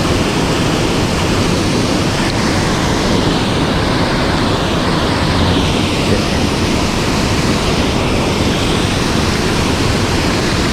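Steady loud rush of mountain-stream water.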